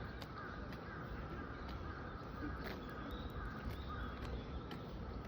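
Birds calling in many short, repeated calls, with a few sharp clicks and a steady low rumble of outdoor background noise.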